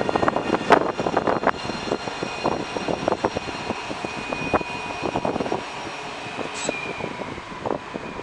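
Alstom Citadis 402 low-floor tram rolling slowly past, its electric traction drive giving a steady high whine that dips slightly in pitch near the end, over the rattle and rumble of its wheels on the rails.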